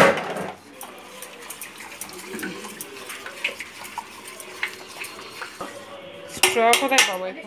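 A metal spoon stirring and scraping in a steel bowl of wood-apple sherbet, with scattered small clinks and taps and one sharp clink at the very start. Near the end, glass tumblers are handled with a few clinks and a voice speaks briefly.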